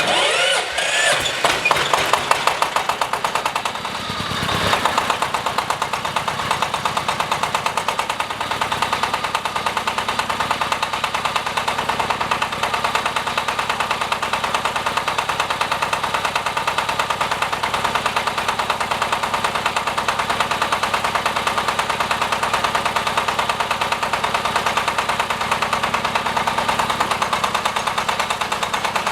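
Diesel engine of a hydraulic water-well drilling rig running. It comes in suddenly and rises in pitch over the first couple of seconds, dips briefly about four seconds in, then settles into a steady, fast, even running beat.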